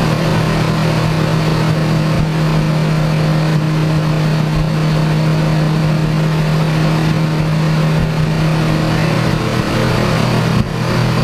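Lamborghini Aventador LP700-4's V12 running through an aftermarket Fi Exhaust system, held at a steady engine speed on a chassis dyno. It makes a loud, even drone that shifts slightly in pitch near the end.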